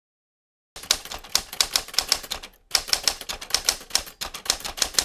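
Typewriter keystroke sound effect: a quick run of sharp key clacks, about five a second, with a brief pause about two and a half seconds in.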